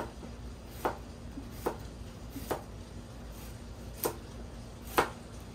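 Knife chopping ginger: five slow, separate chops about a second apart.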